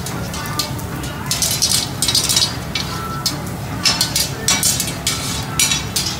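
Long metal cooking sticks scraping and clinking across a large round flat-top griddle as food is pushed and turned, in a series of quick strokes, over a steady low hum.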